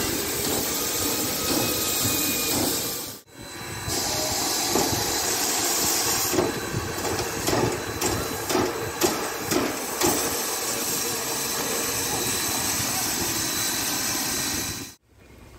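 Steam hissing steadily from WMSR 1309, a 2-6-6-2 Mallet steam locomotive, standing at the station. About halfway through comes a few seconds of quick rhythmic puffing from the locomotive.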